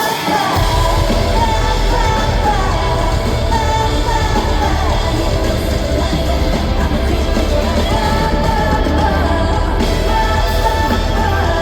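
K-pop girl group performance: women singing live over a loud amplified backing track with heavy bass, which comes in about half a second in.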